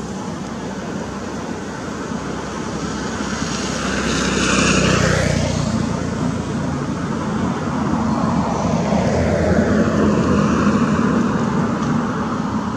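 Engine noise of passing motor vehicles, swelling up and fading away twice.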